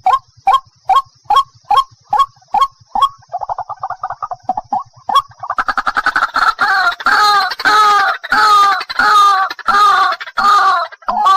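White-breasted waterhen calling. It gives a run of short, evenly spaced notes, about two and a half a second, then a brief fast chatter. From about six seconds in come loud, harsh 'ruak' calls, about two a second.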